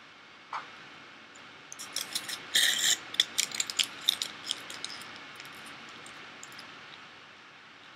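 Aluminium foil crinkling as it is squeezed and wrapped around a cotton-covered fingertip: a burst of sharp crackles about two seconds in that thins out over the next few seconds.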